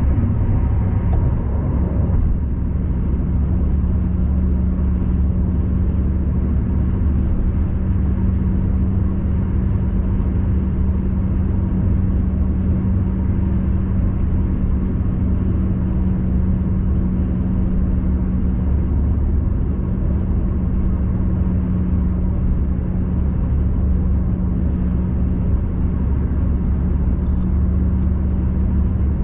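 Car interior noise at expressway speed: a steady low rumble of tyres on the road with a constant engine hum.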